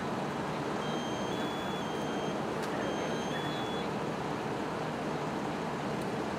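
Steady engine drone of fire apparatus running at the fire scene. Twice, a thin, high electronic tone steps between two pitches: about a second in, and again about three seconds in.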